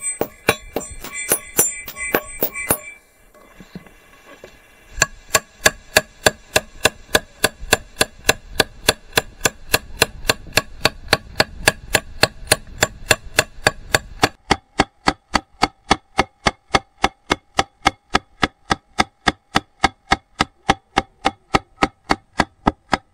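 Small hammer tapping a brass strip into a groove in a steel pharsa axe head, about four quick blows a second, each with a short metallic ring. The tapping stops briefly about three seconds in, then goes on steadily, and the pitch of the ring drops lower about two-thirds of the way through.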